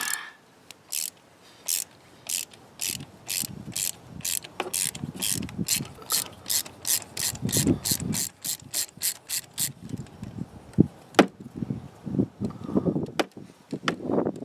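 Hand ratchet wrench clicking in a steady run of strokes, about three clicks a second, as it turns a spark plug in the engine. The clicking stops after about ten seconds, followed by a few sharp knocks and tool-handling sounds.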